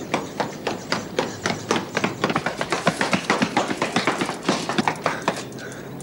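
Quick running footsteps, hard soles slapping on cobbles, several steps a second. They grow louder toward the middle and stop shortly before the end.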